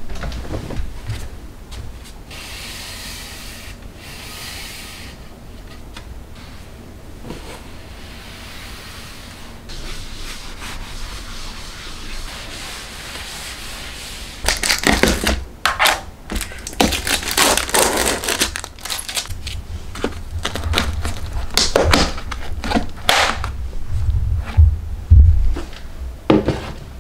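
A cloth wiping and scrubbing the inside of a wooden wardrobe, with quick back-and-forth rubbing strokes and occasional knocks against the panels. It is quieter handling noise for the first half, and from about halfway through the scrubbing is loud and continuous.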